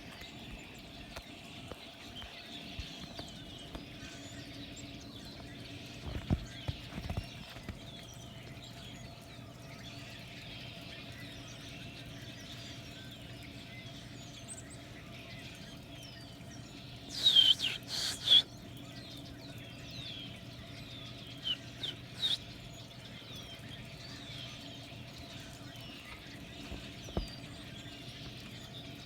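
Many small birds chirping and twittering continuously, with a steady low hum underneath. A much louder, harsher burst of sound about two-thirds of the way through, and a few fainter knocks.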